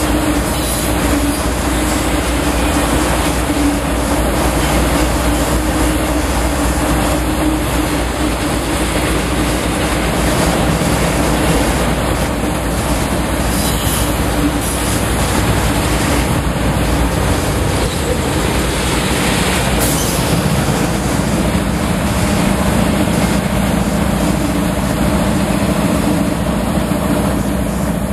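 Freight train of autorack cars rolling past, a steady, loud rumble and rattle of steel wheels on rail.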